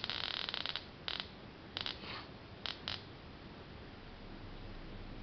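Rapid crackling clicks from the high-voltage multiplier circuit arcing: a dense run in the first second, then a few short bursts up to about three seconds in, after which only a faint steady hum is left.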